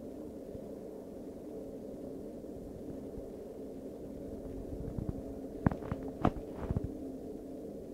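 A steady, low humming drone made of several held tones, the unexplained night-time noise heard from indoors through a window. A few sharp clicks and knocks come about five to seven seconds in.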